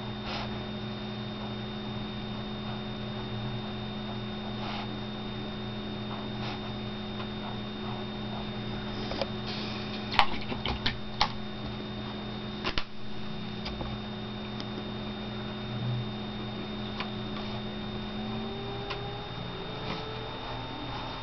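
Steady electrical hum, with a short cluster of faint clicks and taps about ten to thirteen seconds in.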